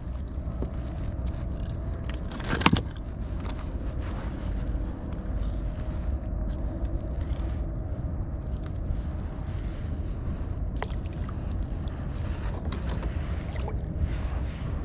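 Steady wind rumble on an open-air microphone over water, with the clicks and knocks of a plastic fish lip gripper and landing net being handled. One sharp clack about two and a half seconds in is the loudest sound.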